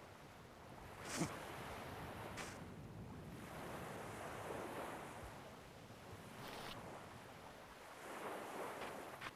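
Faint ocean surf, waves swelling and washing onto the shore every few seconds, with a few brief, sharp clicks.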